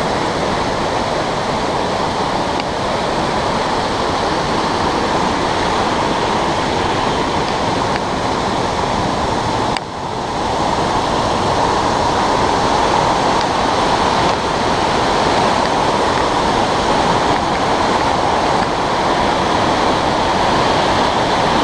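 Mountain river rushing in white-water cascades over boulders, a loud steady rush of water with a brief dip about ten seconds in.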